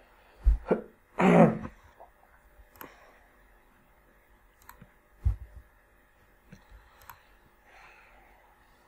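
Scattered computer-mouse clicks and a few low thumps on the desk or microphone. About a second in comes a short breathy sound from the person at the microphone, the loudest thing here.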